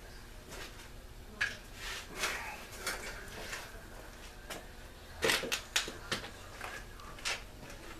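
Scattered clicks and light clattering of small tools and parts being handled at a workbench, with a loudest cluster of knocks about five seconds in.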